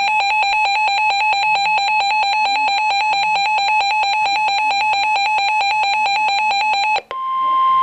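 Electronic emergency alert alarm: a rapid, evenly pulsing beep for about seven seconds, which breaks off and gives way to a steady single-pitched warning alarm tone, the tone NOAA Weather Radio sends ahead of a warning broadcast.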